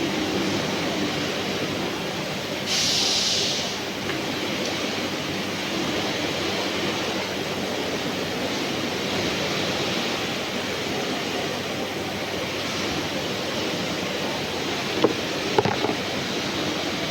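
Steady machinery noise with a faint low hum, broken by a brief hiss about three seconds in and a few sharp clicks near the end.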